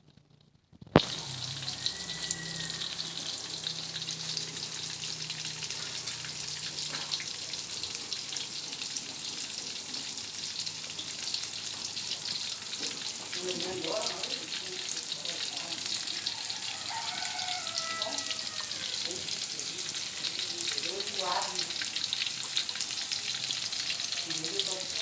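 Battered tofu deep-frying in hot oil: a steady sizzle with constant fine crackling, starting suddenly after a click about a second in.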